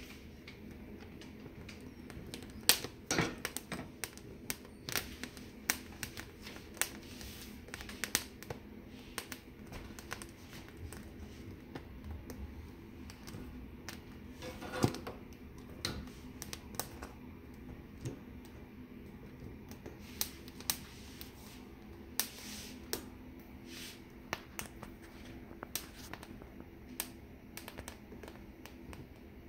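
Poblano peppers roasting directly over a gas burner flame, their skins crackling with irregular sharp pops as they blister and char, over a steady low hum.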